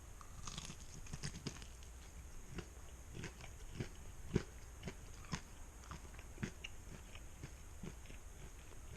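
Close-up chewing and biting on chicken wings: irregular small clicks and crunches, several a second, with one sharper crunch a little before halfway.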